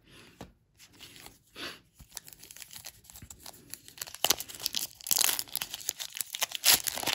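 A trading card pack's wrapper being torn open and crinkled by hand. A few quiet rustles and clicks come first, and the tearing and crinkling grow louder from about four seconds in.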